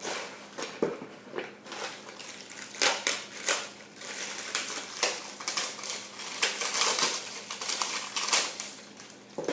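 Packaging being handled and unwrapped by hand: a quick, irregular run of crinkling and crackling with small knocks, some louder bursts through the middle.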